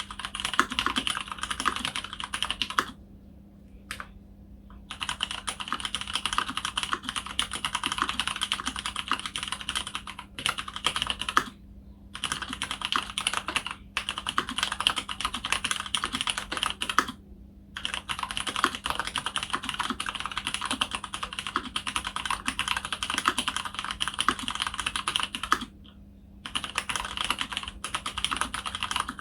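Fast, continuous typing on a mechanical keyboard with lubed Cherry MX Clear tactile switches (Krytox 205g0, slow-curve springs) in an aluminium plate, with a few short pauses between bursts of keystrokes.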